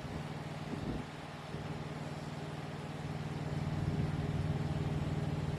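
Distant lawnmower engine running steadily, growing a little louder in the second half.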